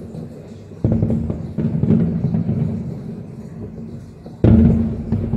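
Fireworks display: aerial shells bursting in a continuous low rumble of booms, with a heavy boom about a second in and another near the end.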